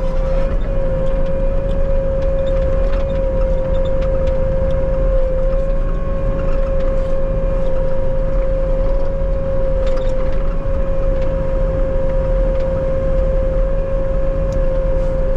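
Bobcat T77 loader running steadily, a diesel rumble with a constant high whine over it.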